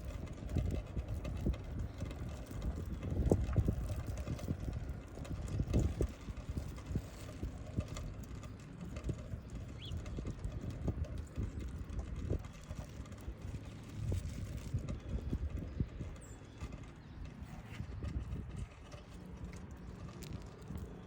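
Wind buffeting the microphone in a low rumble, with many irregular soft low thumps.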